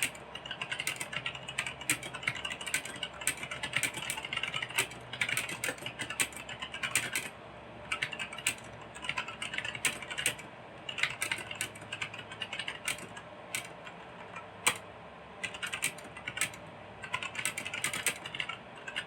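Typing on a Gigaware K28 mechanical keyboard fitted with newly soldered brown switches: rapid keystroke clatter in runs of a second or two, broken by short pauses.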